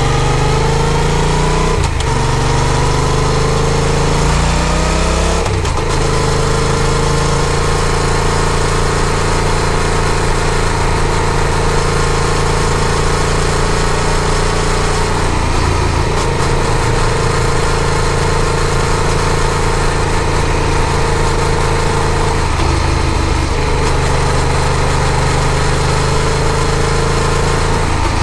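Yamaha FZ-07's parallel-twin engine pulling up through the revs, shifting up twice in the first six seconds, then holding a steady cruise with a couple of brief throttle lifts later on, over steady road and wind noise.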